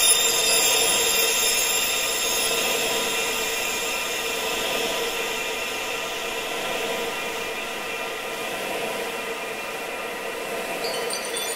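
Wind-sound therapy track: a steady rushing noise with many held, ringing high tones over it. The whole slowly gets quieter, and a few new high tones come in near the end.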